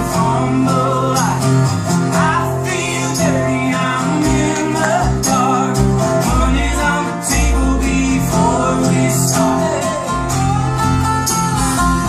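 Live acoustic folk band playing a song: strummed acoustic guitars over upright bass notes, with voices singing.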